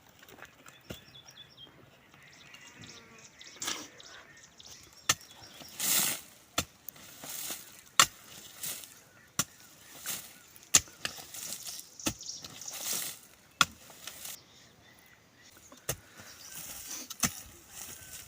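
Repeated sharp knocks, several in a regular run about 0.7 seconds apart, with swishing scrapes between them.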